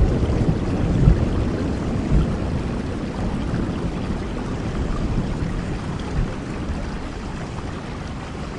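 Steady rain falling, with a low rumble of thunder dying away over the first couple of seconds.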